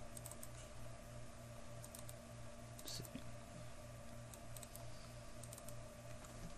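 Faint, scattered clicks of a computer mouse, often two or three close together, over a steady low electrical hum.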